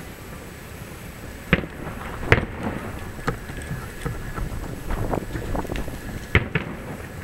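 Aerial fireworks shells bursting: a sharp boom about a second and a half in, another just after two seconds and a third near the end, with smaller bangs and crackles between them over steady background noise.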